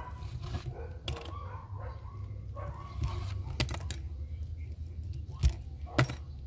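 Small metal alligator clips clicking and snapping as they are unclipped from a mesh stencil wrapped on a crankbait: a handful of sharp clicks, the loudest two close together near the end, over a steady low hum.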